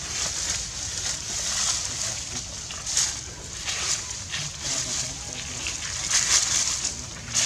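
Rustling and crackling of dry leaf litter as macaques move over it, in irregular swells over a steady high hiss.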